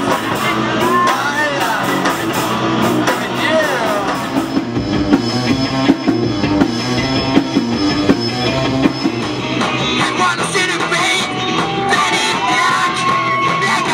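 Rock band playing live: singing over electric guitars and a drum kit.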